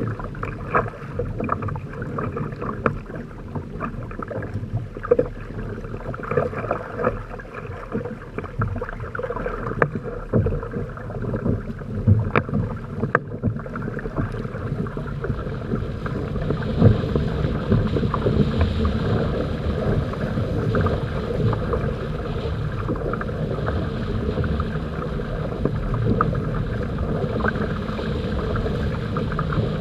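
Water rushing and splashing against the hulls and outrigger floats of a Hobie Tandem Island trimaran under sail. It slaps choppily in the first half, then turns into a steadier, louder rush of spray from about halfway through as the boat picks up speed.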